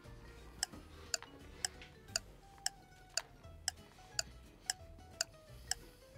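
Clock ticking steadily, about two ticks a second, over faint background music.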